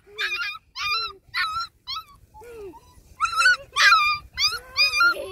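Puppy whimpering and yelping in a run of short, high-pitched cries, with a quieter gap about two seconds in before the cries pick up again.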